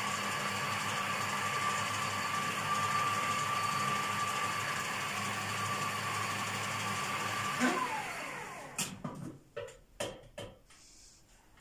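Countertop food processor running steadily with a motor hum and a constant whine, whipping cake batter. About eight seconds in it is switched off and the motor winds down with a falling whine, followed by a few sharp clicks and knocks as the lid is handled.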